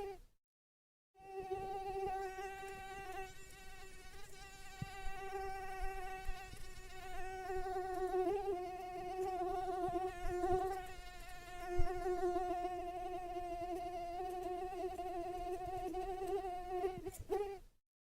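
Mosquito in flight, its wings making a steady, high buzzing whine that wavers slightly in pitch. The buzz drops out briefly about a second in and again near the end, and there is a short click about two-thirds of the way through.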